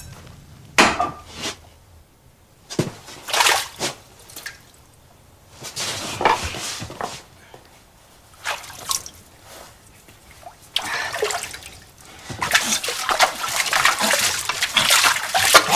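Hands scooping and splashing water in a toilet bowl, used for washing hands and face. It comes in short separate splashes, then a longer run of steady splashing over the last few seconds.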